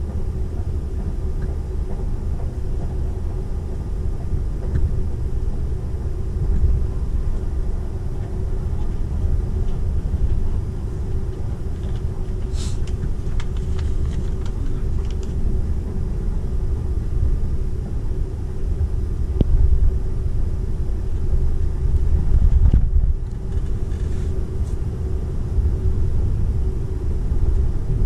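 Cabin running noise of a Seibu 001 series Laview limited-express train at speed: a steady low rumble of wheels on rail under a constant hum, with a few brief high clicks about halfway through the first half.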